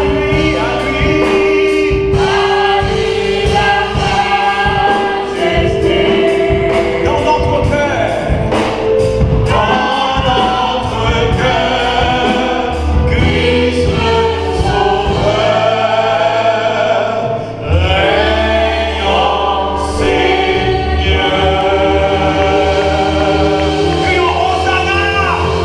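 Gospel choir singing over instrumental accompaniment, with a bass line and a steady beat.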